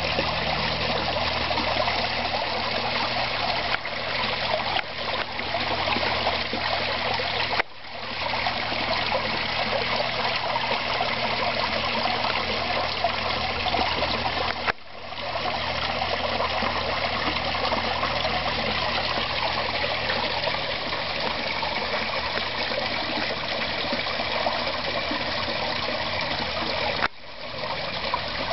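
Steady splashing and trickling of water falling into a garden koi pond, briefly broken off three times.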